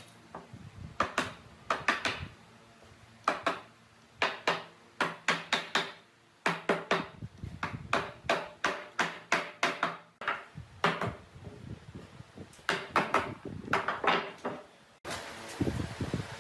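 An irregular series of sharp knocks and clicks, some single and some in quick runs of several. A steady hiss comes in abruptly near the end.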